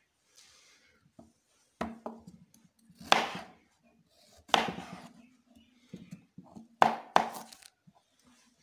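Kitchen knife chopping through a carrot onto a plastic cutting board: five sharp cuts about a second or more apart, the last two close together near the end.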